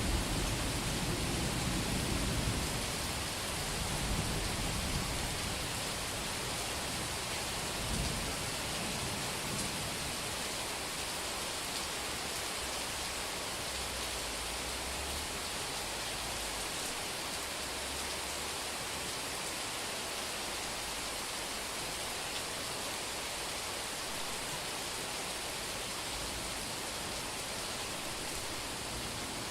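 Heavy rain falling steadily on a street during a summer thunderstorm. A rumble of thunder dies away over the first few seconds, with a couple of fainter low rumbles about four and eight seconds in.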